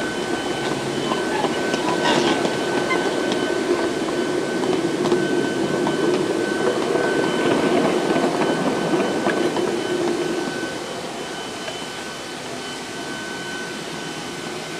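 Wheels of a 5-inch-gauge rail car rolling along steel track with light clicks, until the rolling stops about ten and a half seconds in. Under it runs a steady high whine from a neighbouring machine, background noise that the railway's owner jokes is a jetpack.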